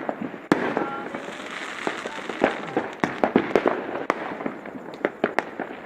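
New Year fireworks and firecrackers going off in a rapid, irregular string of sharp bangs and pops over a haze of crackle, with a few louder reports scattered through.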